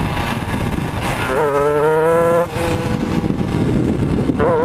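Shifter kart's two-stroke engine running hard, recorded onboard. Its pitch climbs about a second and a half in and drops abruptly a second later, then holds lower and climbs again near the end.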